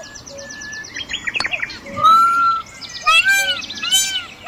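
Bird chirping: a fast high trill in the first second, then a run of arched chirps about twice a second.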